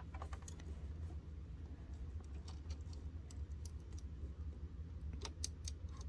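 Light, scattered clicks and taps of fingers handling the needle plate and bobbin area parts of a Singer sewing machine, with a few quicker clicks near the end, over a steady low hum.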